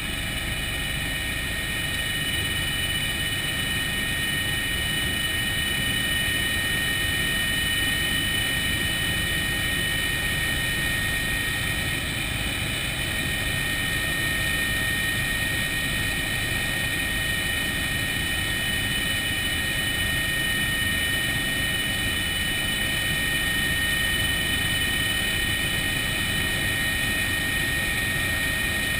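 Helicopter turbine engine and rotor in steady flight, heard from inside the cabin: a constant rumble with a steady high whine over it.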